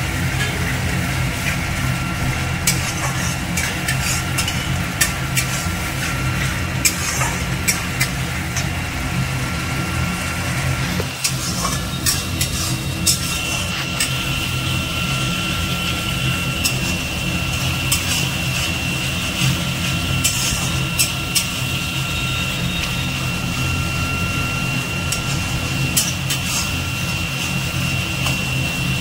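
A steel spatula scrapes and taps against an aluminium kadai while stirring a thick masala, giving many short irregular clicks. Under it runs a steady low hum with a faint high whine.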